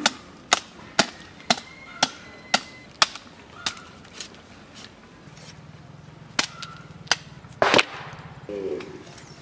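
Heavy knife chopping through a goat carcass's ribs and joints, sharp chops about two a second, then a few more spaced apart, the loudest a double chop near the end.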